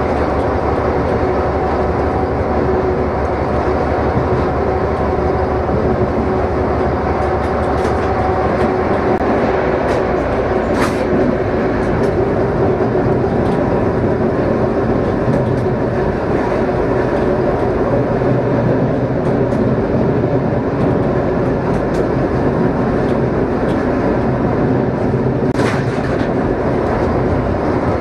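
ČKD class 742 diesel-electric locomotive heard from inside its cab while under way with a freight train: the six-cylinder diesel engine runs steadily under the rumble of wheels on rails. A brief sharp high sound cuts through about eleven seconds in and again near the end.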